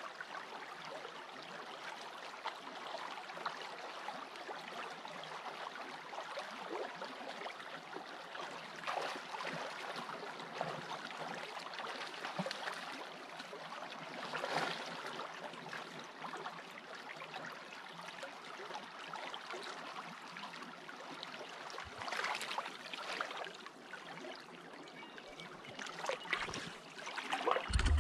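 Small creek running over a shallow riffle close by with a steady rush of water, with a few louder splashes around the middle and near the end.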